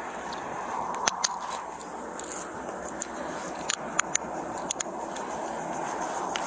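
Light metallic jingling and a scattering of sharp clicks, the sound of small metal pieces such as handcuffs or keys being handled, over a steady outdoor background hiss.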